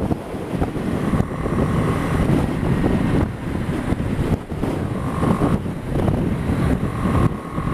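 BMW G 310 GS single-cylinder engine running at moderate revs while riding, with wind rushing over the microphone. The engine is new and being run in, kept below about 5,000 to 6,000 revs.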